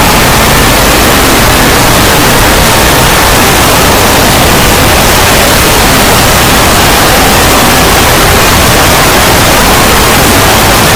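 Loud, heavily distorted wall of noise like static, near full volume and unchanging, with no distinct sounds standing out.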